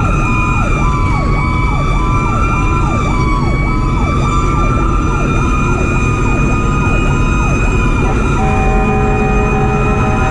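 Fire engine siren in a fast yelp, about two cycles a second, over a steady higher siren tone and low engine rumble. About eight seconds in, the yelp gives way to a steady two-tone horn.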